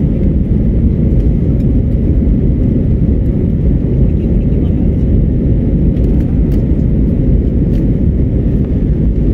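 Steady low roar of an Airbus A320-family airliner's jet engines and rushing air, heard inside the passenger cabin during the climb after takeoff.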